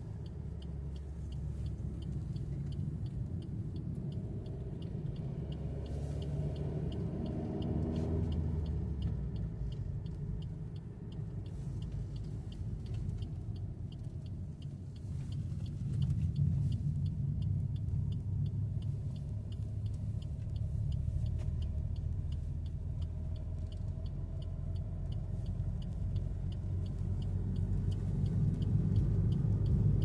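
Car driving, heard from inside the cabin: a steady low rumble of engine and road noise, with the engine note rising for a couple of seconds about seven seconds in and the overall level lifting a little about halfway. A faint, evenly spaced high ticking runs beneath it.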